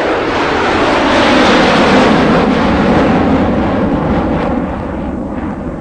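Battery-powered spinning toy ride running: a loud, noisy whirring rattle that builds over the first second or two, holds, and eases off after about four and a half seconds.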